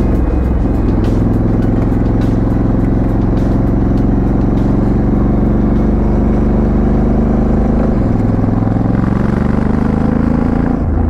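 Honda Africa Twin CRF1100's 1084 cc parallel-twin engine and exhaust pulling steadily under way while riding. The pitch dips briefly about eight seconds in, then climbs again.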